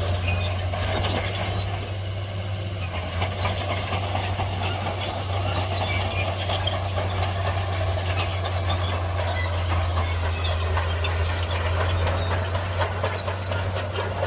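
Shantui crawler bulldozer working, its diesel engine running with a steady low drone under irregular metallic clanking and rattling.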